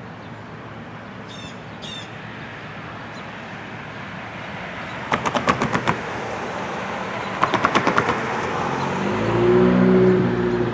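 A bird chirps twice early on, then a car crosses the grade crossing, its tyres clattering over the rails in two quick rattling runs. Near the end a loud, steady chord of low tones swells up, the horn of the approaching train.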